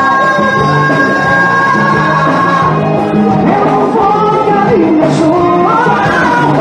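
Live forró band playing loudly, with a man singing into a microphone over a steady pulsing bass beat. Held high instrumental notes sound through the first half, and the voice comes in strongly from about halfway.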